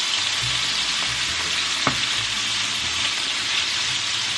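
Cubes of extra firm tofu frying in hot oil in a skillet, a steady hiss of sizzling as a wooden spatula stirs them; the tofu is still giving off a lot of moisture into the oil. One sharp knock comes a little before halfway through.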